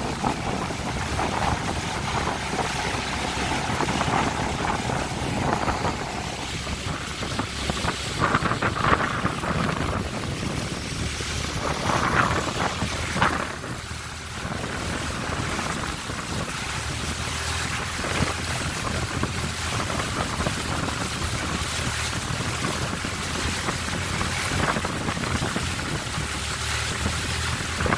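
Thai longtail boat under way on a canal: its engine running steadily, with water along the hull and wind noise on the microphone.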